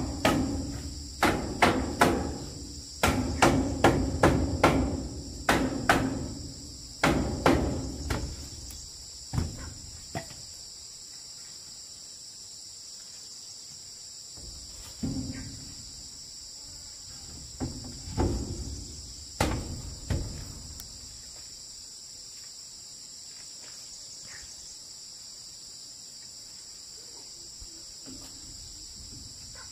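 Hammer blows on the wooden plank wall: a quick run of strikes for the first ten seconds or so, then a few scattered strokes. Underneath runs a steady high-pitched drone of insects.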